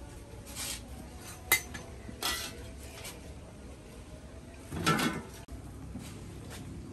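Metal cookware clanking as a large wok and a lidded pot are moved about and set down: scattered clinks, a sharp one about a second and a half in and a heavier clatter near five seconds.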